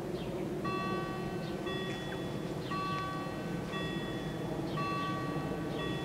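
Level-crossing warning bells start ringing about half a second in and keep a steady rhythm of about one ring a second, signalling that the crossing is closing for an approaching train.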